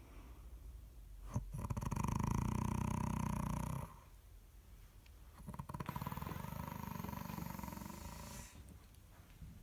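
An adult asleep and snoring twice. The first snore comes about a second in and lasts over two seconds. The second starts just after the middle and lasts about three seconds. Both have a low, rapid fluttering rasp.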